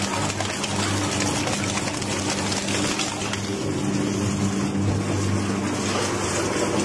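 Crushing machine running: a steady motor hum with a dense rushing noise over it.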